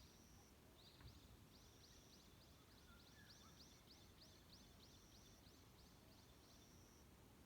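A distant forest songbird singing faintly: a short steady high whistle, then a run of about fifteen quick, repeated high notes at about three a second. A faint low thump comes about a second in.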